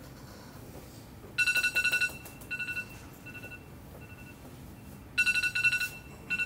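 Electronic phone ringtone: a rapid warbling trill on two fixed pitches, rung in two bursts about four seconds apart, each followed by shorter, fainter repeats.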